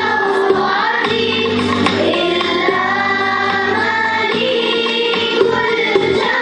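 Children's choir singing a song together in long held notes, with instrumental accompaniment underneath.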